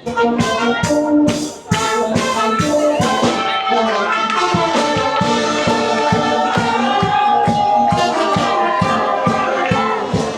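Music with a steady, quick percussive beat under a melody, starting suddenly and loud.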